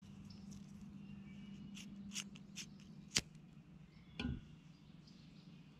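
A lighter is struck several times, sharp clicks, and then a gas canister backpacking stove's burner catches about four seconds in with a short low whump of ignition.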